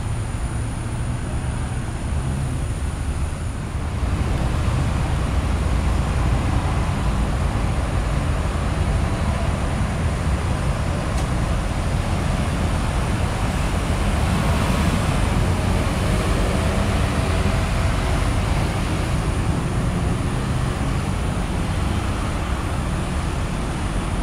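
Steady road traffic noise: vehicle engines and tyres on the road, a little louder from about four seconds in.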